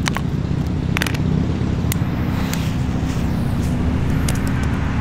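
Steady low outdoor rumble with a few short, sharp clicks scattered through it, and no firecracker bang: the fuse of the firecracker has gone out.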